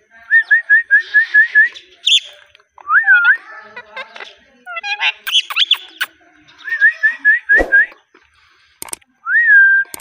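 Indian ringneck parakeet whistling and calling. It gives runs of quick, short whistled chirps, a few longer rise-and-fall whistles, and some harsher chattering calls in the middle.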